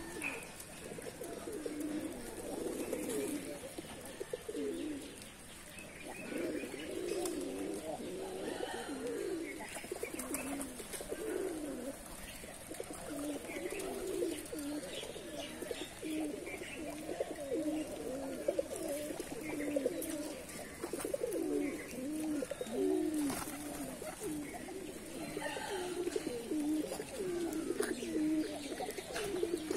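A flock of domestic pigeons cooing continuously, many low coos overlapping one another, with a few faint sharp clicks.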